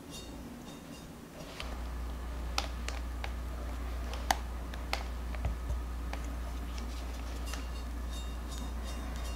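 Scattered light clicks and taps from a metal palette knife and utensils as whipped cream is placed on a chocolate sponge layer and spread, over a steady low hum that comes in about one and a half seconds in.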